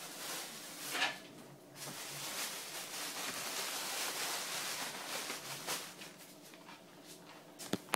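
Rustling and handling noises as items are moved about: a knock about a second in, a few seconds of steady rustling, then a few light clicks near the end.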